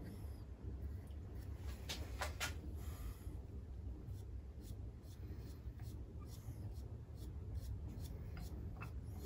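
Paintbrush stroking wood preservative onto a wooden ship's-wheel spoke handle, a faint scratchy brushing. A few sharp clicks come about two seconds in, over a low steady hum.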